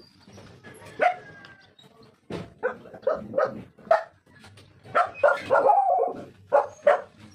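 An animal calling in a run of short, repeated calls, starting about two seconds in and coming one or two a second, with a longer drawn-out call just past the middle.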